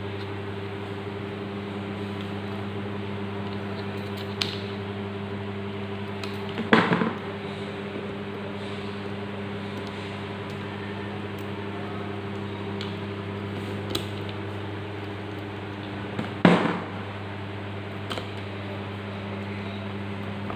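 Small metal distributor parts and screws clicking and clinking as they are handled and fitted, with two louder rattling clinks about 7 and 16.5 seconds in. A steady low hum runs underneath.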